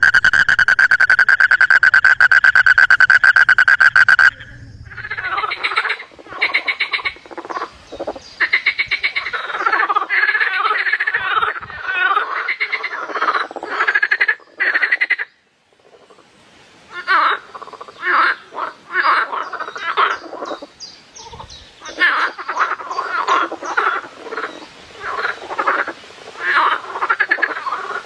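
Frogs calling. First comes a loud, steady, high trill that stops abruptly about four seconds in. Then a chorus of overlapping croaking calls follows in bursts, with a brief pause about halfway through.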